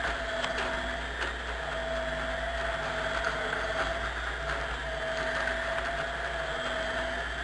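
Industrial stainless-steel drum mixer with inverter-controlled electric drives running, mixing shredded cabbage: a steady motor whine and hum that swell and fade in a slow repeating cycle, with a few faint ticks.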